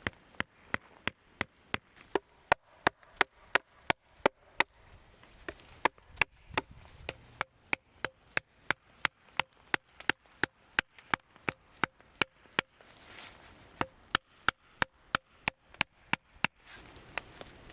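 Steady chopping on wood, about three sharp strikes a second, with a brief pause about thirteen seconds in; the chopping stops near the end.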